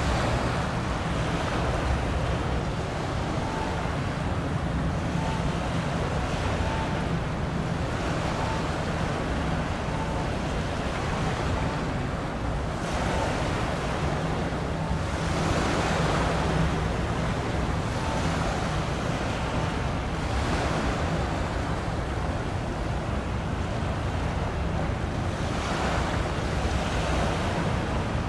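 Sea waves washing at the shoreline, swelling every few seconds, with wind buffeting the microphone. A low steady hum runs underneath.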